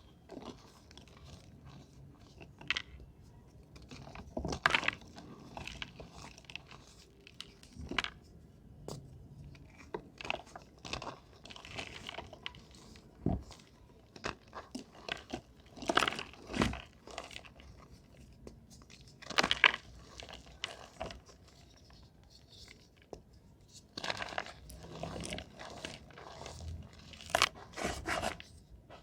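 Reformed gym chalk crunching and crumbling, close up, in irregular sharp crunches with a few louder ones, the loudest about two thirds of the way in and near the end.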